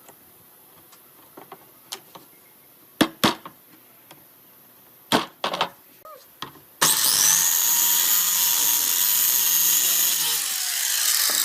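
A few sharp knocks, then a power tool starts about two-thirds of the way in and runs steadily with a high whine.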